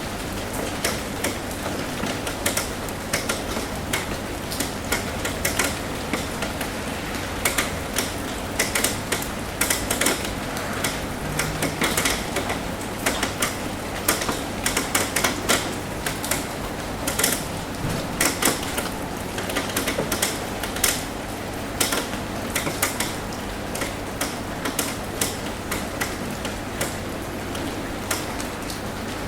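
Rain tapping on a roof: a steady hiss of rain with many irregular, sharp taps of drops hitting the roof.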